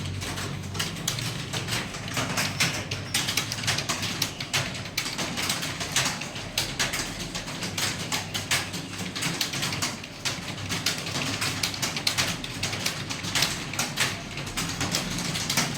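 Fast typing on a computer keyboard: rapid, irregular key clicks.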